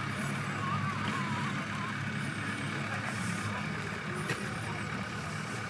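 Steady low hum of off-road vehicle engines idling, with faint voices in the background.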